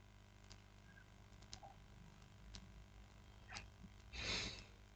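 Near silence: quiet room tone with a few faint, evenly spaced clicks and a short soft hiss about four seconds in.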